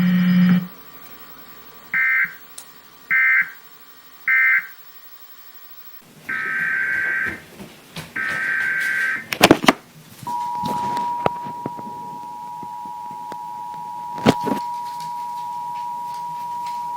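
Emergency Alert System test audio: three short bursts of SAME data screech closing out a message, then two longer data-header bursts and a few loud clicks. About ten seconds in, the steady two-tone EAS attention signal starts and holds, with a couple more clicks over it.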